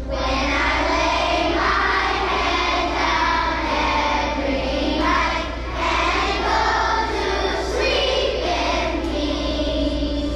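A choir of young children singing together, phrase after phrase with brief pauses between.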